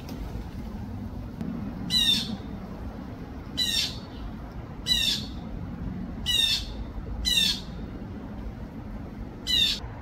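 Blue jay calling: six short, falling calls, spaced about one to two seconds apart.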